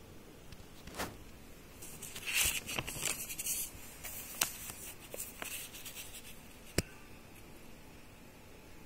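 Paper notebook pages being handled and turned: a stretch of paper rustling and scraping, with a few sharp clicks and taps scattered through it.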